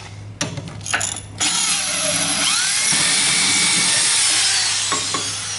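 Power drill running a carbide-tipped multi-purpose bit into ceramic tile. There are a few short bursts as it starts to bite, then a steady grinding hiss with a wavering whine for about four seconds, stopping shortly before the end.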